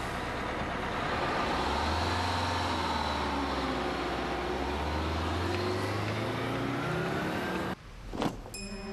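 Car engine running on the road, its low hum swelling as the car passes, with its pitch slowly sliding. It cuts off suddenly near the end, followed by a brief click.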